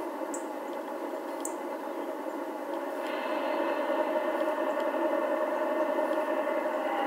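Diesel engine sound from the sound module of an LGB garden-railway diesel locomotive, played through its small onboard speaker and rolling along the track. It grows louder from about three seconds in as the train comes closer. A couple of short high chirps come near the start.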